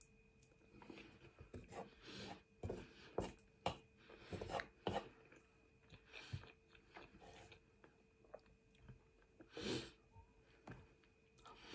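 Quiet, close-up chewing and wet mouth noises of someone eating cheesy spaghetti, with irregular soft smacks and clicks. A wooden utensil scoops through the pasta in a frying pan.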